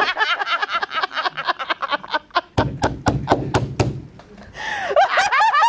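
A person laughing in quick, repeated bursts, with breathy gasps in the middle and a short lull about four seconds in before the laughing picks up again.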